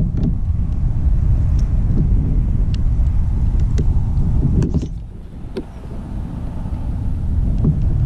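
Wind buffeting the microphone: a loud low rumble that eases suddenly about five seconds in, then slowly builds again, with scattered small clicks.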